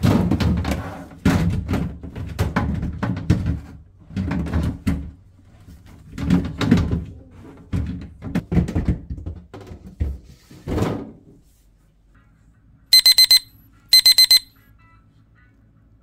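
Clear plastic refrigerator crisper drawer and shelf being worked back into place, a run of irregular plastic knocks, thunks and rattles that stops about eleven seconds in. Near the end a 60-minute kitchen timer beeps in two quick bursts of about four beeps each, signalling its hour has run out.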